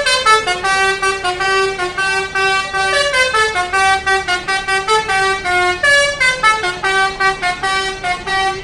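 Indonesian 'telolet' multi-tone bus horn played by hand as a quick tune, with short notes stepping up and down about four times a second without a break.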